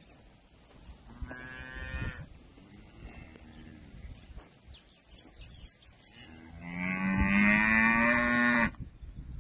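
Cattle mooing: a short moo a little over a second in, a fainter one just after, then one long, loud moo near the end that stops abruptly.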